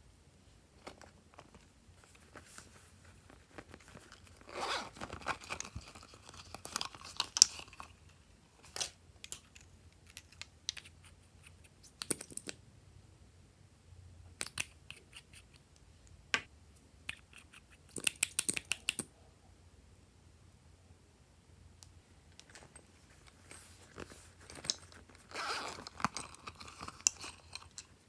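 Small plastic cosmetic bottles and lip-gloss tubes handled close to the microphone: caps twisted off and clicked, applicator wands drawn out, giving scattered clicks and short scraping rustles in three busier spells, with a quick run of sharp clicks a little past the middle.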